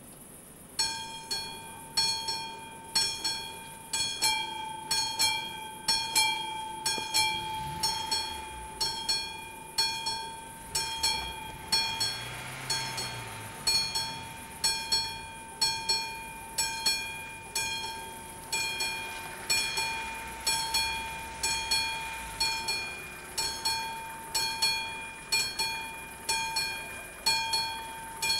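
Railway level-crossing warning bell ringing in steady, evenly spaced strokes, about two a second, each stroke ringing on and fading before the next. It starts about a second in and signals that the crossing is closed for an approaching train.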